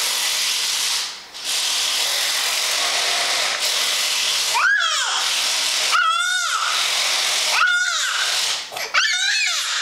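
Electric power screwdriver running in long whirring stretches, stopping briefly about a second in, while a baby yells loudly four times over it, each yell rising then falling in pitch.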